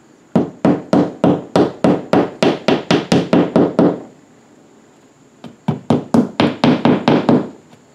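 Hammer tapping a plastic drywall anchor into its hole in the wall to drive it flush. Two quick runs of light, even taps, about four a second: a longer run, a pause of under two seconds, then a shorter run.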